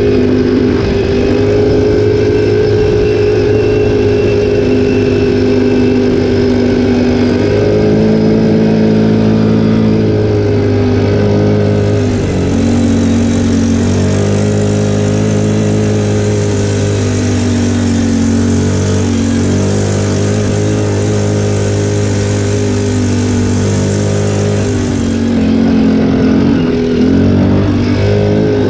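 Linhai 300cc 2x4 ATV's single-cylinder four-stroke engine running under way on a gravel track, its pitch rising and falling with the throttle. A high hiss joins it over the middle stretch of the ride.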